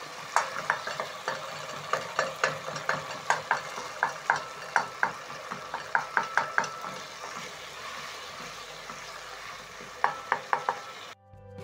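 Wooden spatula stirring a sizzling tomato and onion sauce base in a granite-coated pot, scraping and knocking against the pan about three times a second. The knocks pause for a few seconds while the frying goes on, then return briefly before the sound cuts off near the end.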